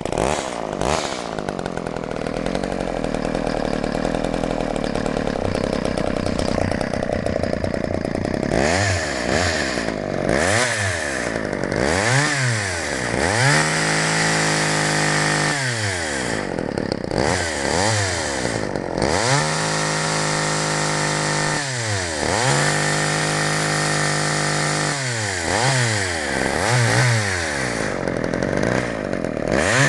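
Sears Craftsman White Lightning 2.0 two-stroke chainsaw engine, just started, idling steadily for about eight seconds. It is then revved over and over: quick blips up and down and three held full-throttle runs of a few seconds each. It runs smoothly throughout.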